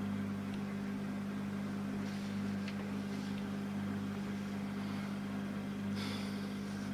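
Room tone: a steady low electrical hum. There are a few faint ticks, and a brief rustle about six seconds in.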